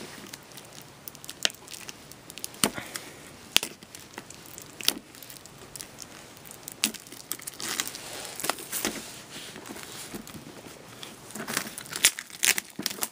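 Plastic wrapping being torn and crinkled off a DVD box set, with scattered sharp clicks and taps from the plastic disc cases being handled. The crinkling thickens near the end.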